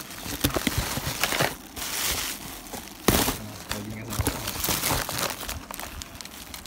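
Plastic packaging and bubble wrap crinkling as foil cookie pouches are handled. About three seconds in there is one sharp, louder crackle.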